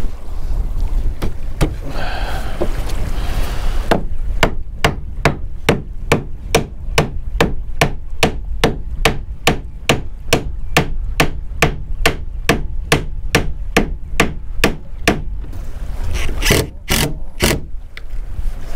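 Hammer knocking a glued wooden hull plank into place, a fast even run of blows about three a second starting about four seconds in and lasting about eleven seconds, then a few more knocks near the end.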